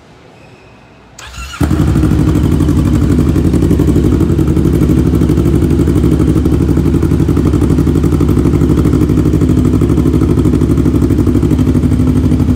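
Kawasaki Versys 650's parallel-twin engine, fitted with an aftermarket full exhaust system, cranking on the starter just over a second in, catching almost at once and settling into a steady idle.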